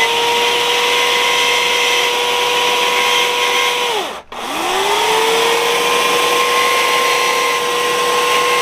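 Small carving chainsaw with a thin .043 chain, triggered twice. Each time it winds up to a steady high whine and holds it. The first run winds down and stops about four seconds in, and the second runs on through the rest.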